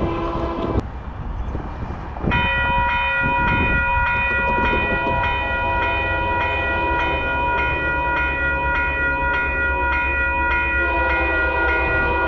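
Train passing with a low steady rumble, its locomotive horn sounding one long steady chord from about two seconds in, with a lower chord joining near the end.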